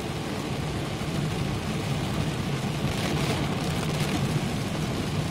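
Steady in-cabin noise of a car driving in heavy rain: a constant low engine hum under the hiss of rain on the car and water on the road, with the hiss swelling briefly about three seconds in.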